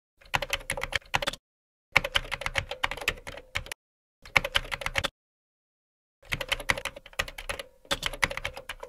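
Computer-keyboard typing sound effect: rapid key clicks in four runs, each broken off by dead silence, as on-screen text types itself out.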